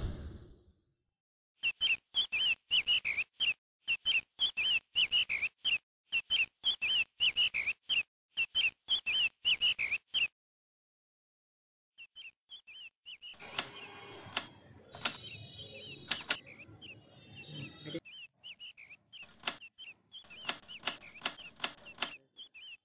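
Rapid high chick peeping in runs of about a second, cut cleanly on and off. After a short pause the peeping resumes, joined by sharp clicks and taps of the hard painted toy chickens pecking at rice grains on the concrete floor.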